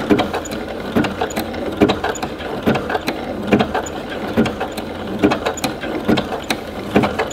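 W6 N 8000 computerised sewing machine running slowly on its button-sewing zigzag, the needle stitching a coat button on with a regular mechanical clatter of about two to three stitches a second.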